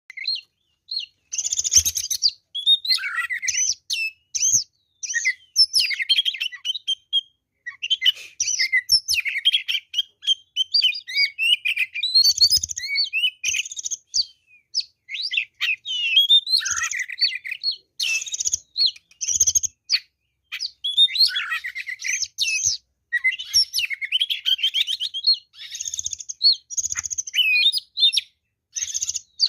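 Oriental magpie-robin (kacer) singing loud and almost without pause: a varied song of rapid chirps, whistles and trills, broken by brief gaps.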